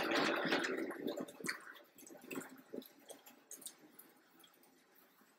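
Countertop blender motor winding down and stopping within the first second or two, the thick shake settling in the jug; after it, only a few faint clicks and knocks.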